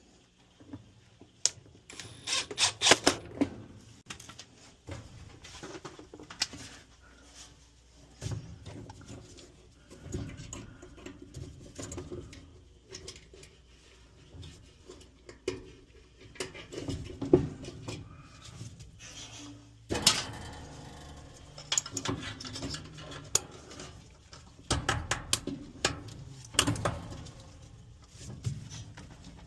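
Hand work on the dryer's metal parts and tools: irregular clicks, knocks and scraping, with louder bursts of clatter about a quarter of the way in, two-thirds of the way in and again near the end.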